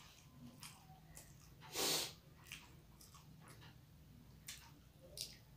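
Close-miked mouth sounds of a person eating rice by hand: soft wet chewing clicks and smacks, with one much louder noisy rush of about half a second, about two seconds in.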